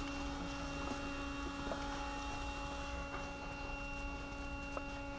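Steady hum of a warehouse made of several level tones, with a few faint crackles of dry cured tobacco leaves being handled.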